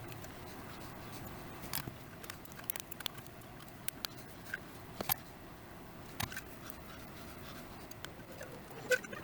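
Scattered sharp clicks and light scratching of small hand work on a through-hole circuit board as resistors are fitted, with about a dozen clicks spread irregularly through it.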